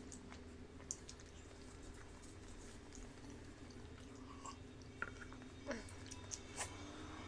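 Faint chewing and lip-smacking of deviled eggs being eaten, with scattered soft clicks and wet smacks over a steady low hum.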